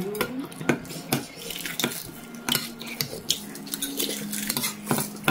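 Metal chopsticks and spoons clinking against bowls and plates while people eat, a string of sharp, irregular clicks and taps.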